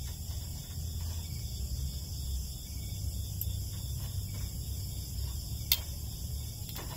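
Metal tongs clicking against the wire grate of a small charcoal grill while turning squash slices, with one sharp click a little over halfway through. Crickets trill steadily behind it, over a low rumble.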